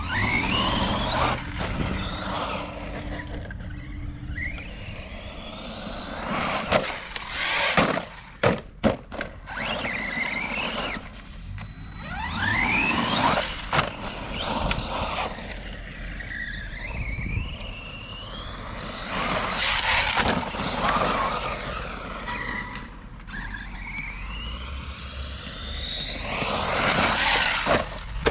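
Electric RC trophy truck on a 3S LiPo, its motor whining up and down in pitch as the throttle is blipped and released, with tyres scrabbling on dirt. A few sharp clacks and thuds come about a third of the way through as the truck lands or hits the ground.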